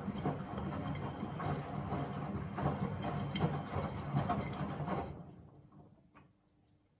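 Miele W Classic front-loading washing machine drum turning with wet laundry tumbling inside: an uneven rumbling clatter that winds down and stops about five seconds in, followed by a faint click.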